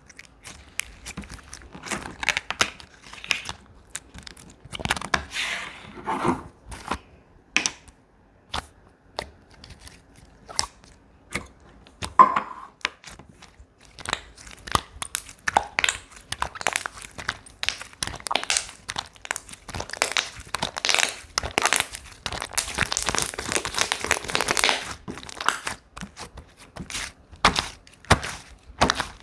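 Hands squeezing and stretching slime, giving a dense run of sharp crackling pops and clicks that thins out for a few seconds in the middle and grows busier in the second half.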